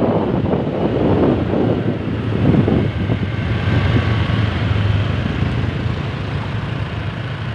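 Bus engine and road noise, a steady low rumble that is loudest a little past halfway and then eases off as the bus passes.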